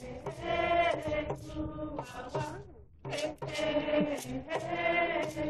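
Ceremonial chanting in long held notes, each about a second, with a short drop in pitch at the end of some notes and short sharp strokes between them.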